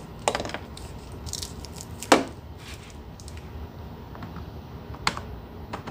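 Handling noise of a power-station charger and its cord: faint rustling with three sharp knocks and clicks, about a third of a second, two seconds and five seconds in, the middle one the loudest.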